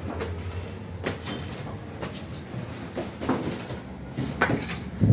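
Scattered knocks and clatter of things being handled, sharpest about four and a half and five seconds in, over a low steady hum.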